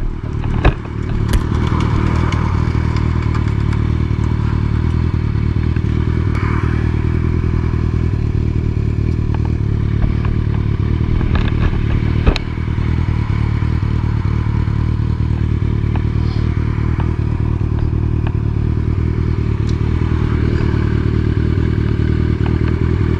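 Motorcycle engine running steadily, with a few clattering knocks near the start and one sharp knock about twelve seconds in.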